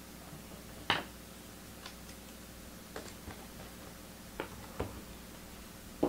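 A few faint, scattered clicks and taps of trading cards being handled, the sharpest about a second in, over a low steady hum.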